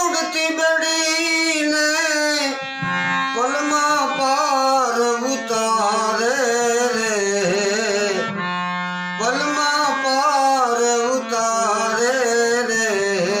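Gujarati devotional bhajan (santvani) music: an ornamented melodic line over a steady accompaniment, possibly with tabla. The melody eases off briefly about eight seconds in, then resumes.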